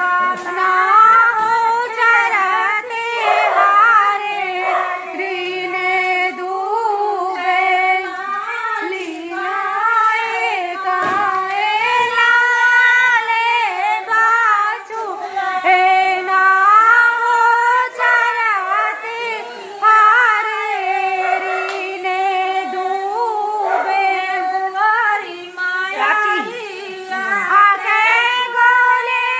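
Women's voices singing a Hindi folk song together without accompaniment, in long drawn-out, wavering notes.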